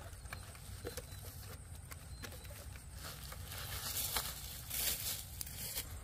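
Watermelons being handled in a woven bamboo basket: scattered light knocks, then rustling of grass and vines that grows louder a few seconds in, over a low steady rumble.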